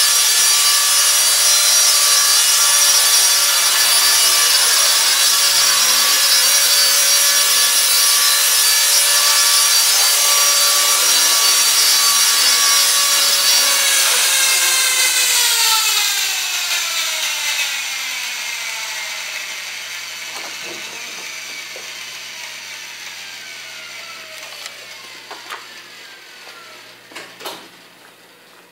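E-flite Blade SR electric RC helicopter hovering with a steady high whine from its motor and rotor blades. About halfway through it sets down and the motor and rotors spool down, the whine falling in pitch and fading over the next dozen seconds. A few light clicks come near the end as the blades slow.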